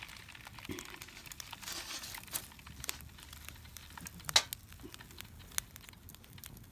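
Wood campfire crackling, with irregular sharp pops and snaps from the burning firewood, one loud pop about four seconds in.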